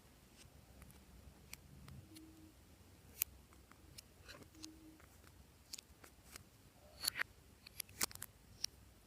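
Glossy slime being worked by hand, giving scattered sticky clicks and small pops, with a cluster of louder ones near the end.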